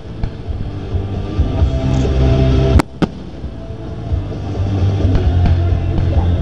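Music with a steady, heavy bass plays throughout. A firework bursts with one sharp bang about three seconds in, and fainter pops follow later.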